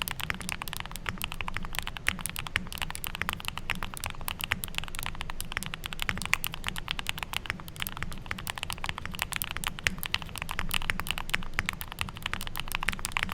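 Rapid, continuous typing on a Neo65 Core Plus mechanical keyboard with Gateron Oil King linear switches, a PP plate and full foam, many keystrokes a second with no pauses.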